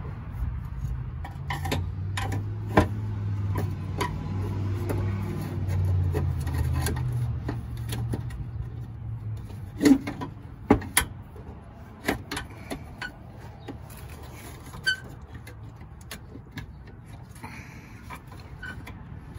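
Scattered clicks and knocks of a plastic fog light housing and its mounting being handled and fitted back into place, the sharpest knocks about ten and eleven seconds in. A low rumble runs through the first half and fades out.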